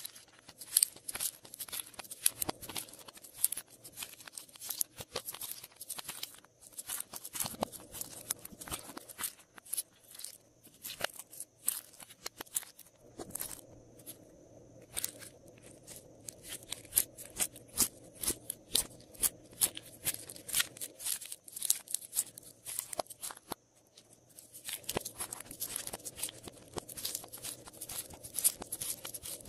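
Pink glossy slime being squished by hand and pressed into and pushed out of a plastic ice-cube tray, giving a dense run of quick sticky clicks, pops and crackles.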